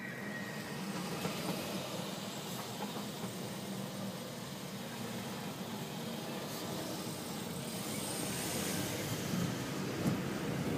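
Engine and road noise of a car creeping through heavy city traffic, with the surrounding traffic. Steady, growing a little louder toward the end.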